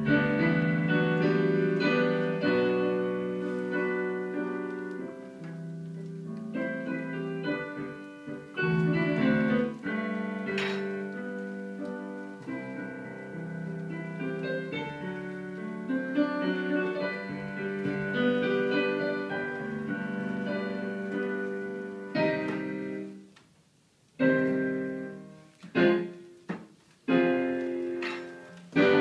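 Piano music: slow chords and melody with held notes. Near the end it fades away briefly, then a few separate chords are struck.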